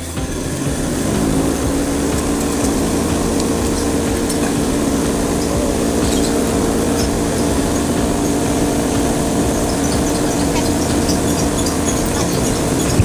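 Cotton candy machine running, its motor and spinning head giving a steady hum.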